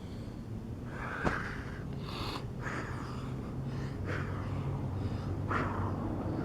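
A man breathing hard after burpees, a series of short, sharp breaths about a second apart: out of breath from the exercise.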